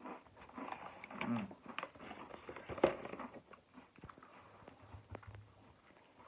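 A person biting into and crunching a Chili Klaus Trinidad Scorpion chilli chip: irregular crisp crunches and chewing, the loudest crunch about three seconds in.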